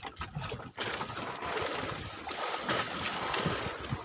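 Sea water splashing and sloshing against a small fishing boat, with scattered short splashes.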